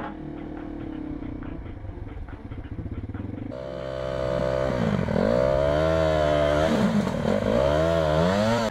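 Yamaha TT-R230 dirt bike's single-cylinder four-stroke engine running as the bike is ridden slowly. About a third of the way in it gets louder, with wind rush over the microphone, and the engine pitch drops and climbs twice as the throttle is rolled off and back on.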